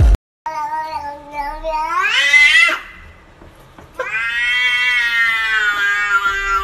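A domestic cat making two long, drawn-out meows. The first rises in pitch over about two seconds; the second starts about four seconds in and is held fairly steady for over three seconds.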